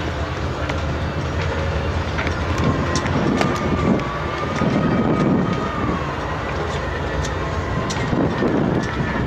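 Tugboat diesel engines working hard: a heavy, steady low rumble with a thin wavering whine above it.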